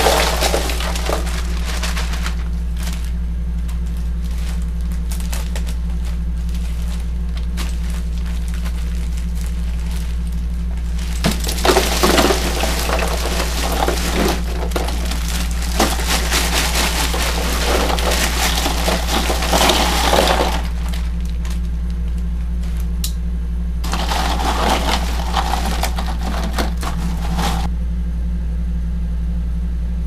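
Bagged ice cubes poured into an empty plastic Igloo ice chest, clattering and rattling against the liner and each other. The pour comes in two spells, a long one about a third of the way in and a shorter one near the end, over a steady low hum.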